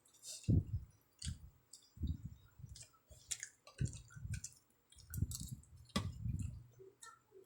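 Close-miked eating sounds: chewing with mouth and lip clicks, a run of short, soft, low thumps every half second to a second with sharp clicks between them.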